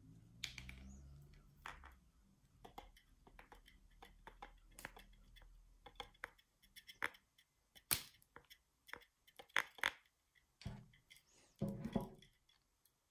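Irregular clicks, taps and small cracks of a Pennywise head-knocker figure being handled. The loudest is one sharp crack about eight seconds in, with a cluster of crackling near the end. A low hum fades out about halfway through.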